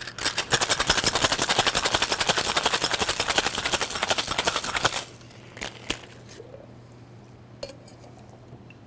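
Ice rattling hard in a metal cocktail shaker, shaken fast for about five seconds, then the shaking stops and a few light metal clicks and knocks follow.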